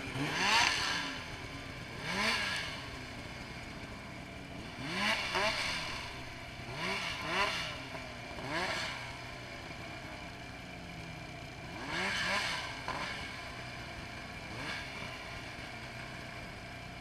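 Snowmobile engine blipped in short bursts of throttle, each rev rising and falling in pitch, about nine times at irregular gaps. This is the rider working a snowmobile stuck in deep snow to free it. Another snowmobile idles steadily underneath.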